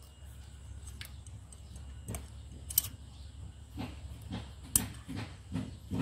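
Brush-cutter engine turned over by hand at its centrifugal clutch: a few sharp metallic clicks, then from about four seconds in a rhythmic puffing of the engine's compression, about two or three puffs a second.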